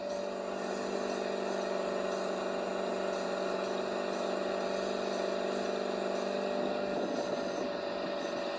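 A small motor running with a steady hum of unchanging pitch.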